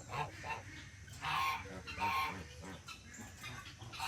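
Farmyard poultry calling: two short calls stand out, about a second and about two seconds in, with fainter clucks around them.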